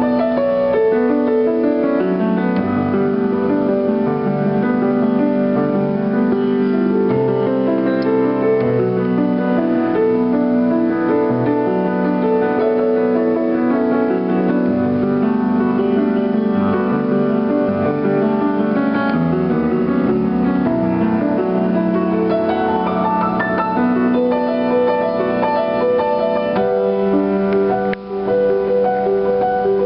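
Piano played with both hands, improvising a tune of full, sustained chords that change every second or so, with a brief drop in level near the end.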